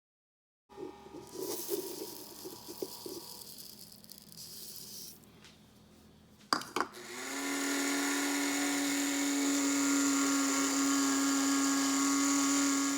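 Electric blade coffee grinder switched on with a click about halfway through, then its motor whirring steadily at one even pitch as it grinds golden flax seeds into flour. Before it starts there are quieter, irregular handling sounds.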